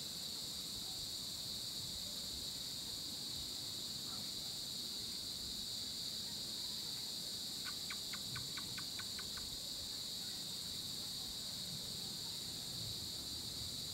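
Steady, high-pitched evening insect chorus of crickets trilling without a break. About eight seconds in, a short run of about a dozen quick clicks, some six or seven a second, sounds over it.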